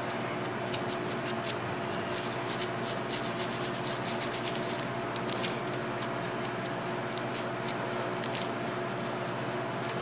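Toothbrush scrubbing a corroded battery terminal connector with wet baking soda paste: quick back-and-forth bristle strokes, several a second, over a faint steady hum. The baking soda is cleaning off and neutralising lead-acid battery corrosion.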